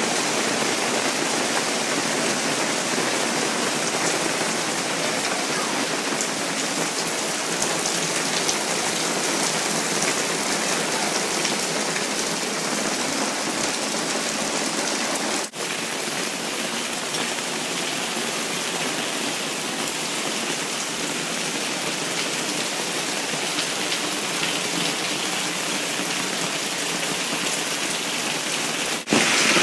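Heavy downpour of rain and hail pelting down in a dense, steady patter, broken off briefly about halfway through and again near the end.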